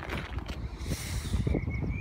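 Open railway station background: a steady low rumble, with a brief hissing rush about a second in and a faint high wavering whine near the end.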